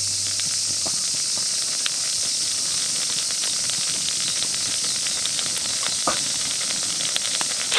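Wood campfire burning with a steady hiss and many small crackles under a hot grill pan.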